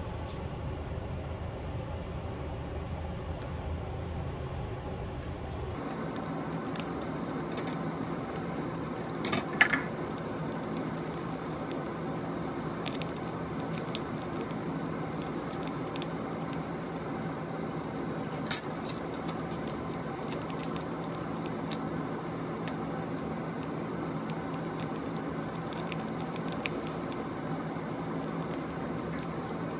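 Hands tearing open and squeezing small plastic sachets over a bowl: faint crinkling and handling ticks, with two sharp clicks about nine and eighteen seconds in, over a steady low hum.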